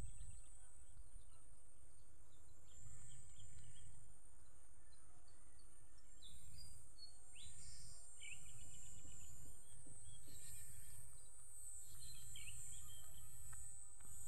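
Steady high-pitched insect buzz, with short bird chirps every few seconds over a low rumble.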